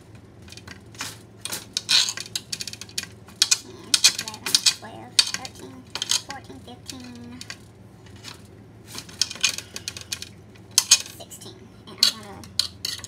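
Kitchen knife tapping and clicking on a glass cutting board as a block of cheese is cut into cubes: sharp, irregular taps, several in quick succession, then a pause, then more.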